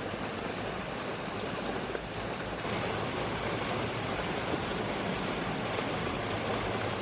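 Steady rushing noise, a little louder from about three seconds in.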